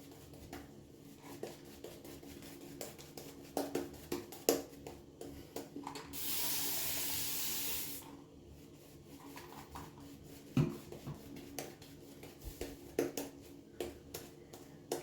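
Shaving brush painting and working lather on Mitchell's Wool Fat soap: light bristle scratching and small clicks. About six seconds in, a steady hiss lasts about two seconds and stops.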